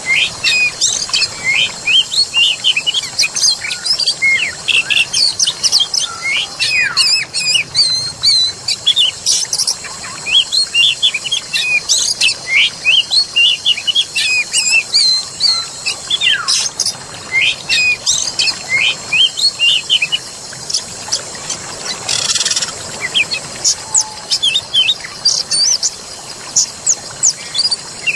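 Dense chorus of songbirds chirping and singing in quick, overlapping short notes and slides, over a steady high ringing tone. A harsher, noisy call stands out about three quarters of the way through.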